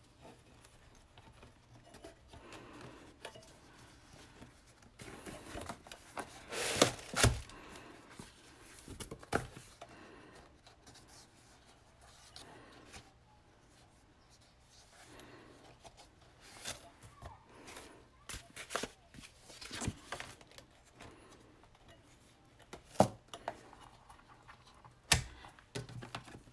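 Paper planner pages rustling and scraping as they are handled and pressed onto the metal rings of a ring binder, with scattered sharp clicks and knocks, the loudest cluster about seven seconds in.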